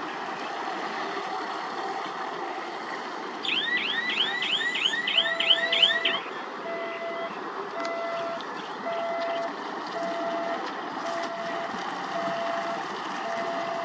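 Heavy construction machinery running steadily, joined about five seconds in by a single-pitched reversing alarm beeping about once a second. Just before the beeping starts, a short burst of rapid warbling chirps sounds.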